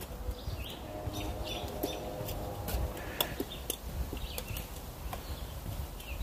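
Footsteps of a hiker walking at a steady pace along a dry forest trail, about two steps a second, with leaves and twigs crackling underfoot.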